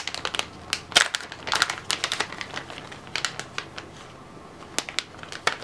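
Clear plastic bag holding small vinyl doll hands being handled: a run of crinkles and clicks, dense in the first couple of seconds, then thinning out to a few scattered clicks.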